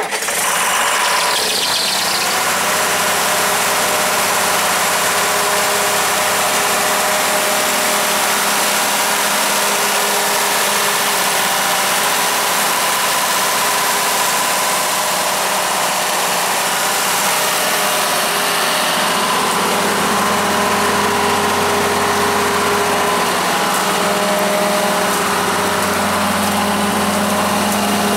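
Ingersoll Rand G170 diesel generator's John Deere 6.8-litre diesel engine running steadily at a constant speed, with no change in pace.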